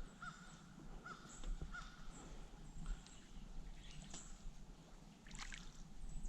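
A bird calling in short, repeated, arched notes in the first couple of seconds, faint over a low background rumble, with a few light clicks and taps later on.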